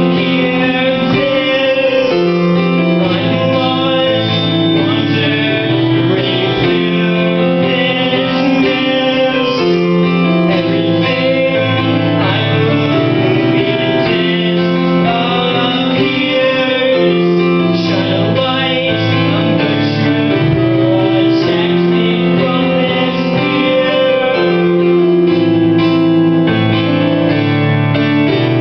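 Casio Privia digital piano played live in a steady run of chords and notes, with a man singing over it at the start.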